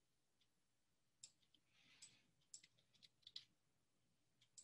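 Faint computer mouse clicks, several of them, irregularly spaced, over near silence.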